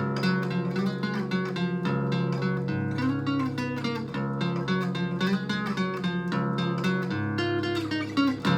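Lotus L-80 guitar with a Bartolini 3AV pickup, played through a BOSS DS-1 pedal into an amp and tuned half a step down, strumming chords that change about once a second. The tone is a bright, lightly driven amplified-acoustic sound.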